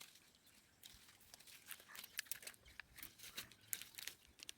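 Faint, irregular snapping and rustling of coffee cherries being plucked by hand from a coffee bush, with its leaves brushing.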